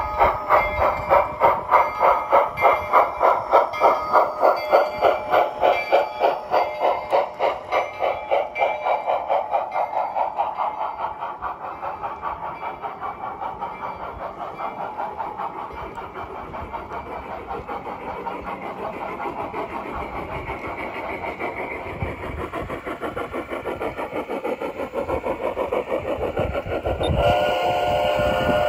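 Bachmann C-19 model steam locomotive chuffing with an even beat of about two to three chuffs a second, loudest in the first ten seconds as it passes and then fainter as it draws away. A whistle with several tones sounds briefly near the end.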